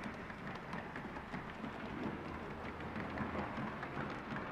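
7mm O-gauge model trains running on the track: a steady rumbling clatter with many rapid light clicks.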